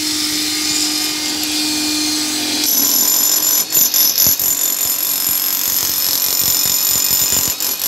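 Corded electric demolition hammer chipping a concrete wall, its chisel pounding and its motor whining steadily. It grows louder about three seconds in and starts to cut in and out near the end.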